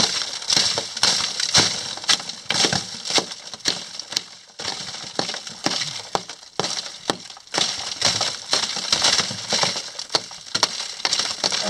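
A steel rock hammer striking a hard rock face again and again at an uneven pace, chipping off ore samples with a gritty crunch of breaking rock between the blows.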